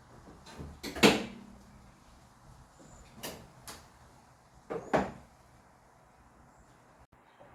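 A car's hood being opened: a sharp clunk about a second in, two lighter clicks, then another clunk about five seconds in, as the latch releases and the hood is lifted and propped.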